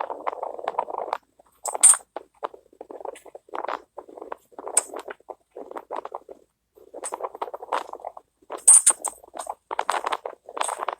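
Irregular handling noises: rustling and scraping in short, uneven bursts, with scattered light clicks and clinks, as of hands and tools working on parts.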